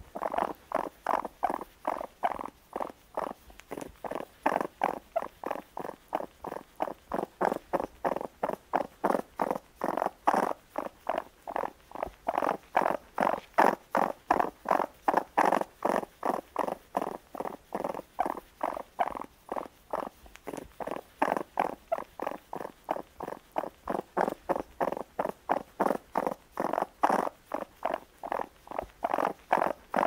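Raccoon calling in a rapid, steady series of short pulses, about three a second, without a break.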